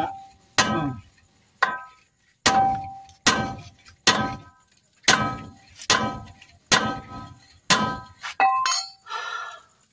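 Hammer blows driving a new steel stud bolt into a Howo dump truck's wheel hub to seat it: about ten sharp metal strikes, roughly one a second, each ringing briefly.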